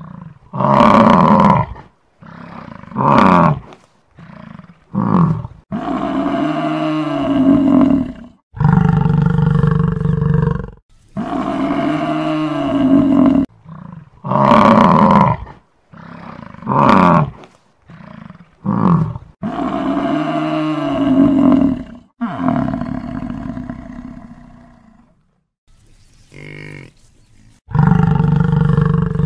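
Buffalo calling again and again: about a dozen separate calls, some short and some drawn out over two or three seconds, with short pauses between them.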